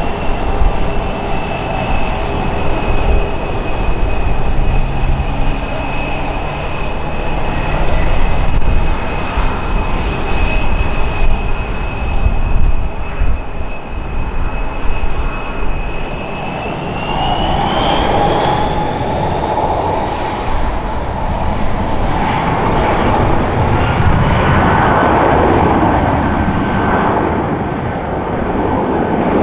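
Airbus A319's two IAE V2524-A5 turbofan engines running at taxi power with a steady high whine and rumble. About two-thirds of the way through, the engines spool up to take-off thrust and the whine rises in pitch as the take-off roll begins.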